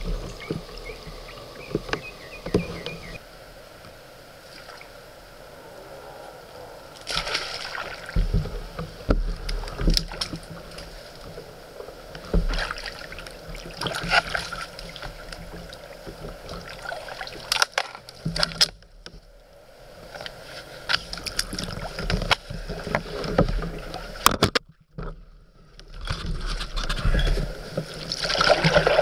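Kayak paddle dipping and splashing in a slow river, the strokes coming irregularly every few seconds, with water trickling and dripping between them.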